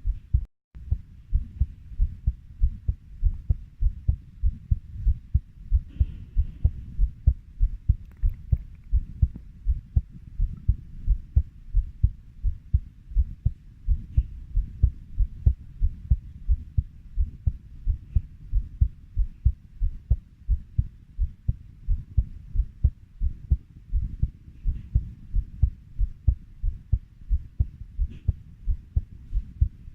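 Human heartbeat beating steadily at 90 beats a minute, each beat a low double thump (lub-dub). A very short gap in the sound falls about half a second in.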